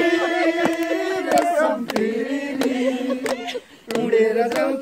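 A group of men singing together in long, held notes while clapping their hands to a steady beat. The singing breaks off briefly near the end, then starts again.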